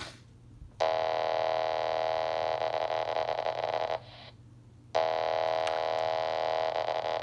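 Steady electronic tone from a RadioShack 27.255 MHz on-site paging system, switching on abruptly about a second in, dropping out for about a second around the middle, then coming straight back.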